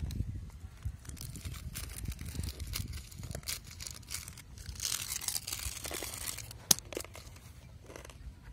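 Plastic snack packet being torn open and crinkled in the hands, in a run of short rustles and rips, with a sharp crackle about two-thirds of the way through.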